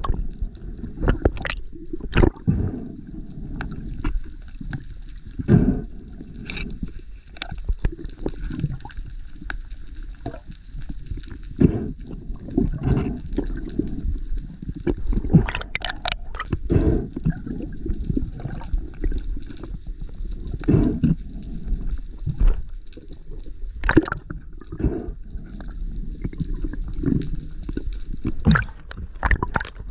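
Underwater sound heard through a camera housing: a muffled low water rumble with gurgling and many irregular sharp clicks and knocks.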